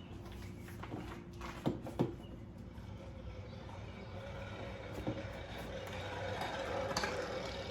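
A cooler being handled and fitted to the back of a motorcycle: a few sharp knocks and clicks, two close together about a second and a half in and two more later, over a steady low hum.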